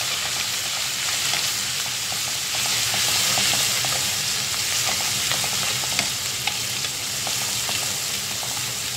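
Ginger-garlic paste sizzling in hot oil in a metal wok, stirred with a spoon that scrapes and clicks against the pan now and then. The sizzle swells a little about three seconds in.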